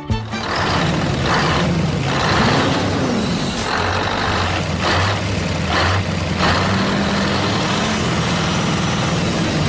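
Mini tractor engine running steadily, with about five short hissing bursts spread through it.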